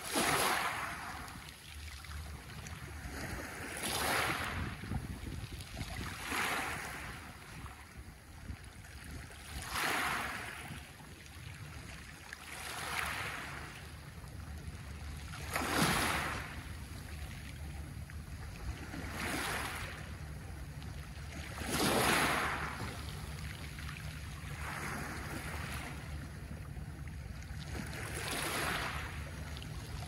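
Small Adriatic sea waves breaking and washing up a pebble beach, about every three seconds: each wash swells into a hiss and fades. The biggest waves come at the start, about halfway through and a few seconds later.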